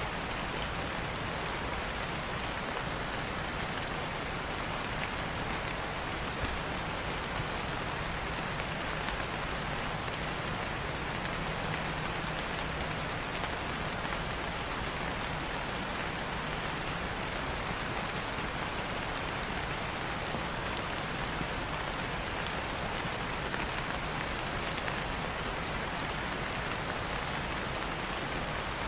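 Steady rain falling on leaves, an even hiss with scattered small drops standing out.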